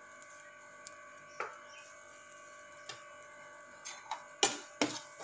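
Metal slotted spatula scraping and knocking against a frying pan as grated coconut is stirred into roasted spice powder, a quick run of sharp clicks starting about four seconds in. Before that, only a faint steady hum with a few isolated clicks.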